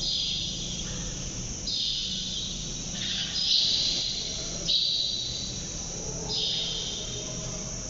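High chirping from small wild creatures in repeated phrases a second or so long, four in a row from about two seconds in, over a low steady hum.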